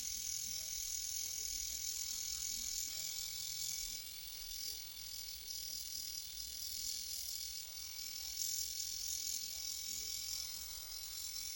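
Small battery-powered eyebrow trimmer running steadily, a continuous high-pitched buzz as it cuts eyebrow hairs.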